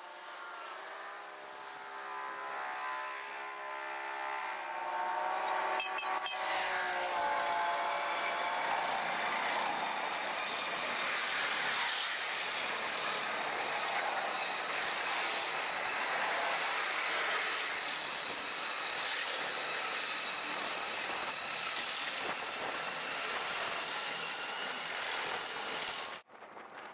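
Freight train led by BNSF diesel locomotives passing: first a steady drone with several held pitched tones as the locomotives approach, then, about six seconds in, the even noise of double-stack container cars' steel wheels running on the rails, which goes on until it cuts off just before the end.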